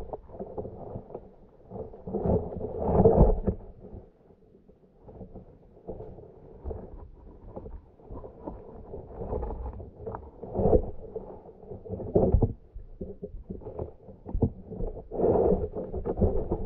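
Muffled underwater sound from a submerged camera: irregular dull rumbles and knocks of moving water, swelling and fading, with louder surges about three seconds in, around eleven to twelve seconds, and near the end.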